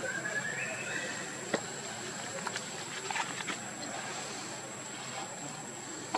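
Macaques moving and handling food on dry leaf litter: scattered small clicks and rustles over a steady outdoor background with a constant high-pitched hum.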